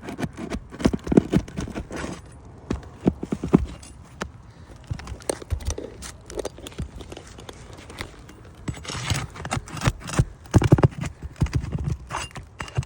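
Irregular knocks and scraping of a roof snake working under asphalt shingles as roofing nails are pulled out.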